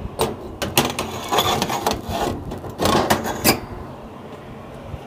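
Metal baking tray being slid into an oven and onto its metal rack: a run of clattering knocks and scrapes that stops about three and a half seconds in.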